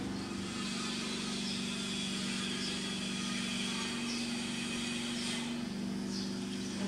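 A steady low engine hum, even in pitch and level, with a few faint short high chirps over it.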